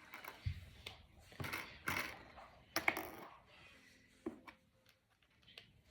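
Small plastic Brain Flakes discs clicking and rattling as they are handled and pushed together: a few irregular clicks and rustles.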